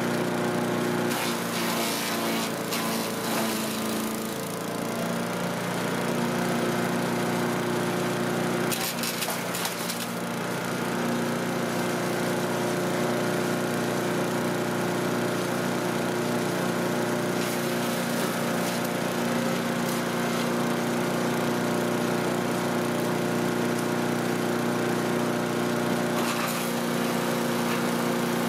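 Cub Cadet CS 3310 gas chipper shredder running steadily, with rough crackling bursts as yard waste goes through the chipper. Its engine note sags under the load twice, a few seconds in and again about ten seconds in.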